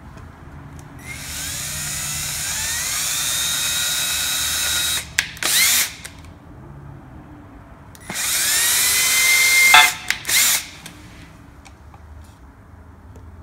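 Power drill with a small bit boring holes in a plastic headlight housing: two runs of a few seconds each, the motor whine rising in pitch as it spins up, each run followed by a couple of short bursts.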